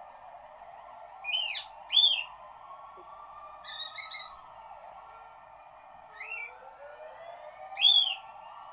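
A cockatiel giving short arching whistled calls, about five of them in small groups, the loudest near the end. Underneath runs a police siren's slow wail, its pitch gliding up gradually.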